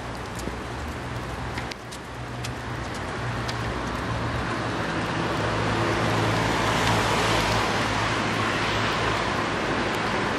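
Traffic noise off a wet street: a steady low hum under a hiss that grows louder about halfway through and then holds.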